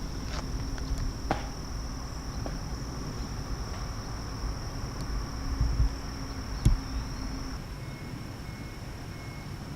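Steady high-pitched insect buzz over a low rumble, with a few sharp clicks, the loudest one nearly seven seconds in.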